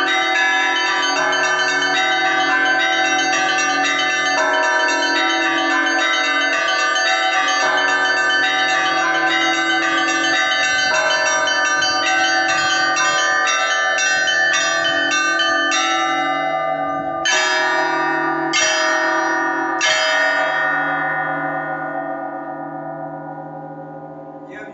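Russian Orthodox church bells rung in a liturgical peal: a quick repeating pattern on the small bells over a steady low bell, getting faster, then three loud strikes on all the bells together about a second and a half apart, after which the bells ring out and fade near the end.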